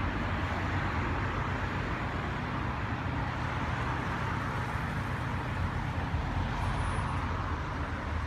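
Steady engine noise: a low rumble with a hiss over it, unbroken throughout.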